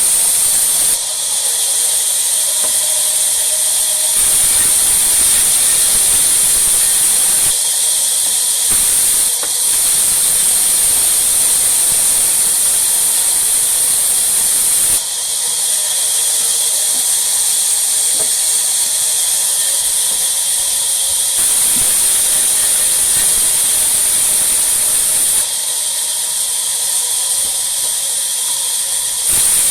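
Sawmill machinery running and cutting wood: a loud, steady high hiss. Its lower rumble cuts in and out abruptly several times.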